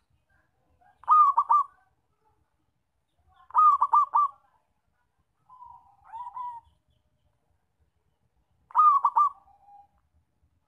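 Zebra dove (perkutut) cooing: four phrases, each a quick run of short staccato coos, about two and a half seconds apart, the third phrase softer than the others. The song is loud and clear.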